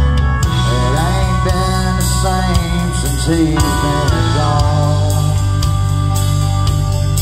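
Live country-rock band playing loud through a PA: electric guitars, pedal steel guitar and drum kit, with notes sliding between pitches.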